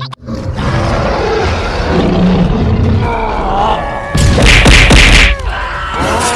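Cartoon fight sound effects: a continuous rushing noise with gliding tones, then a loud impact-like blast about four seconds in that lasts about a second.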